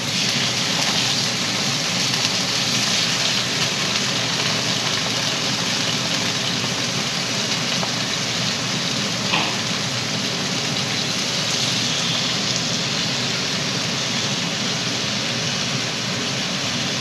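Sheepshead fillets sizzling steadily in hot olive oil in a frying pan, crisping up. One brief light tap about nine seconds in.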